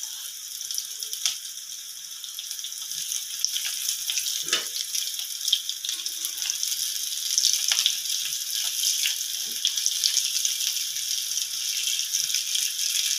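Breadcrumb-coated potato kababs shallow-frying in hot oil in a pan: a steady sizzle with scattered small pops, growing a little louder after the first couple of seconds.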